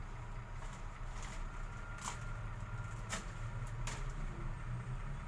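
Steady low kitchen hum with a few light clicks and knocks, like utensils or dishes being handled.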